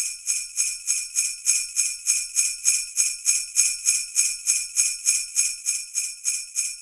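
Sleigh bells shaken in a steady, even rhythm of about three shakes a second, with no other instruments.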